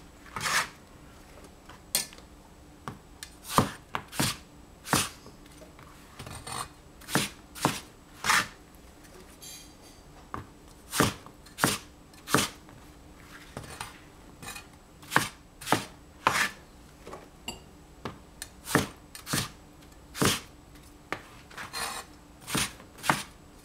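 Chinese cleaver chopping eggplant on a plastic cutting board: separate sharp knocks of the blade through the soft flesh onto the board, at an uneven pace of about one to two a second.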